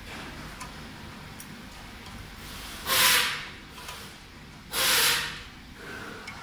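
A hand screwdriver driving a bolt into the metal mounting plate of a stand: two short hissing rasps about two seconds apart, with faint clicks in between.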